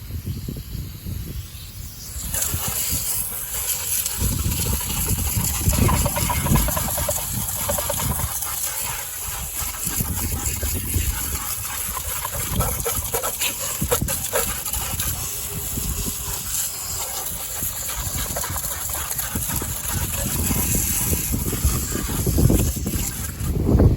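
Water spraying from a hose onto a lawn mower, a steady hiss that starts about two seconds in and stops just before the end, with wind gusting on the microphone underneath.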